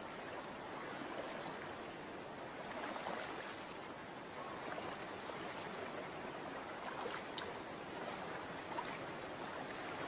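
Shallow stream water running steadily over rocks, with a few small splashes in the second half.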